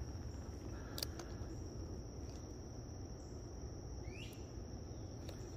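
Insects trilling steadily on one unbroken high note over a low outdoor rumble, with a short chirp about four seconds in.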